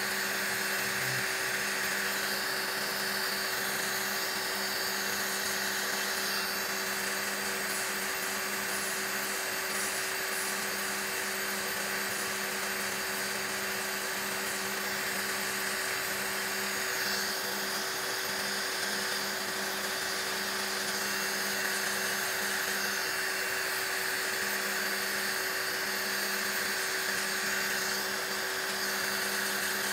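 Electric nail drill running steadily with its bit filing gel off a fingernail: a constant motor hum and whine with a steady hiss of filing, shifting a little as the bit is pressed and moved.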